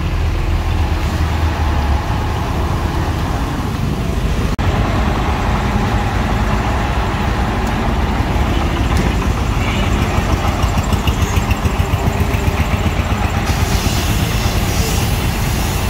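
Heavy truck engine running steadily, with a short dropout about four and a half seconds in.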